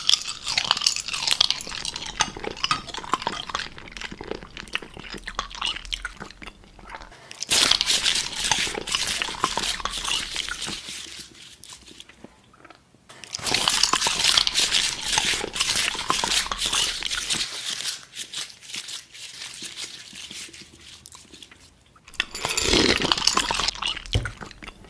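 Close-up chewing of crunchy food, in four spells of loud crunching with quieter chewing between.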